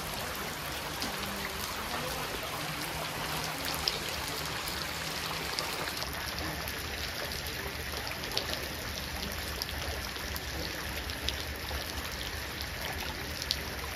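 Light rain falling: a steady hiss dotted with small ticks of drops.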